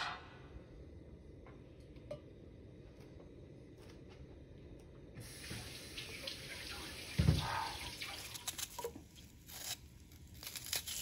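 Cooking oil poured in a thin stream into an empty nonstick pan, a steady hiss that starts about five seconds in. About two seconds later there is a sharp thump, the loudest sound, and near the end come light clicks and taps as chopped onion pieces drop into the pan.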